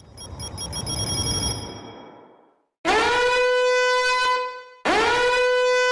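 Sound-effect clips: a noisy swell that fades out, then two identical long horn-like blasts, each a steady tone held for about two seconds, the second starting about two seconds after the first.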